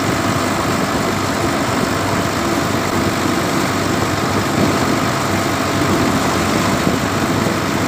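Tractor engine running steadily while the tractor drives along a road.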